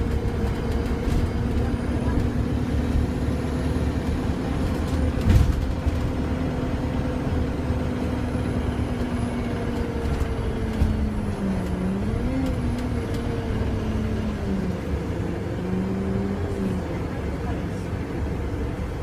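Inside a moving Alexander Dennis Enviro 200 MMC single-deck bus with a Voith automatic gearbox: steady engine and road rumble under a drivetrain hum that holds one pitch, then dips and rises several times from about ten seconds in as the bus changes speed. A single thump about five seconds in.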